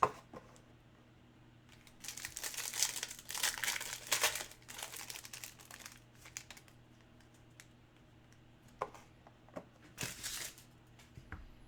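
Trading-card pack wrapper crinkling and tearing as a pack is opened, in rustling bursts, with a few light clicks of cards being handled near the end.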